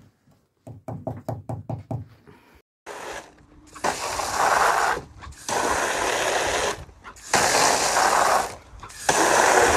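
A quick run of small knocks, then a garden hose spray nozzle blasting water into a plastic kiddie pool in four loud bursts of about a second each, with short breaks between them.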